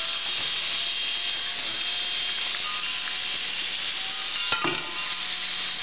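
Antweight shell-spinner combat robot's spinning shell running on carpet: a steady high whirring hiss with faint held tones, broken by one sharp click about four and a half seconds in.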